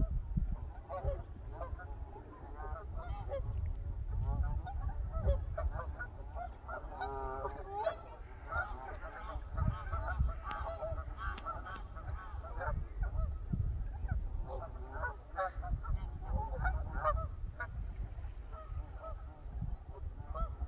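A flock of Canada geese honking, with many short calls overlapping continuously over a low rumble.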